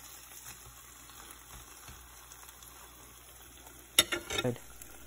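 Tortilla, melted cheese and oil frying in a hot cast-iron skillet, sizzling steadily, with a sharp click about four seconds in.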